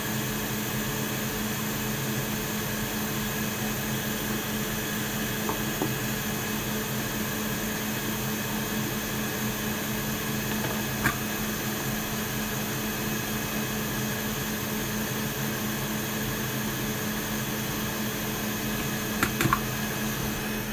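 Steady whirring hum of a fan motor on an electronics repair bench, with a low drone under it and a few faint clicks about halfway through and near the end.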